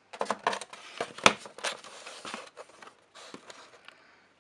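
A cardboard model box being opened by hand: a run of rustling, scraping strokes of the flap and card, with one sharp snap about a second in.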